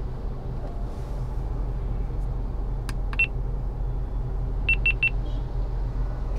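Steady low rumble of a car on the move, heard from the vehicle. About three seconds in comes a single short, high electronic beep, and near the end three quick beeps follow one after another.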